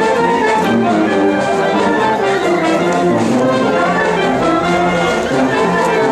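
Brass band playing dance music, horns holding a melody at a steady loudness.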